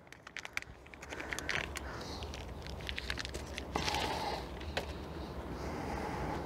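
Scattered clicks and a crackling rustle of a new gas-charged trunk lift support strut being taken out and handled, louder for a moment about four seconds in, over a steady low hum.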